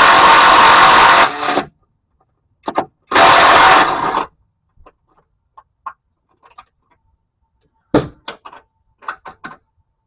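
Handheld power tool run in loud bursts while loosening transmission bolts: it cuts off about a second and a half in, blips briefly, then runs again for about a second. After that come scattered light clinks of metal tools and bolts, with a cluster near the end.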